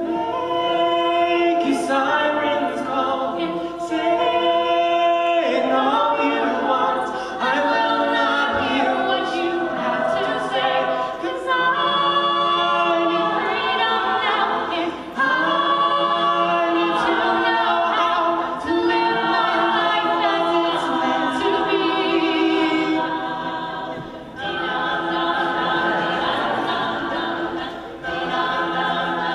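Mixed-voice a cappella group singing in harmony, with a male lead at the microphone. All the voices come in together at once at the very start, and there is a short drop in loudness about three-quarters of the way through.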